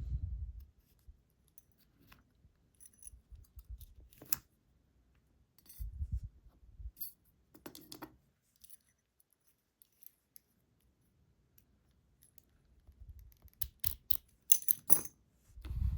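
Small metal lock parts clicking and tapping as a gutted lock is handled and reassembled, with soft low thumps of handling between them; a quick cluster of sharper clicks near the end.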